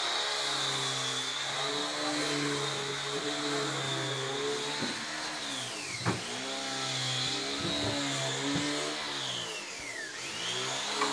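A motor running steadily with a high whine; its speed sags sharply about six seconds in and again near the end, picking back up each time.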